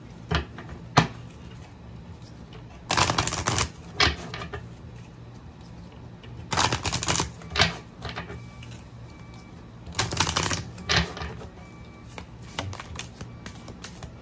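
A deck of tarot cards being shuffled by hand: three quick bursts of rapid card clicking, each under a second, with a few single sharp clicks between them.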